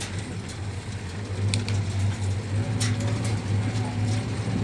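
Farm machine engine running steadily with a low, even hum, with a few sharp clicks over it.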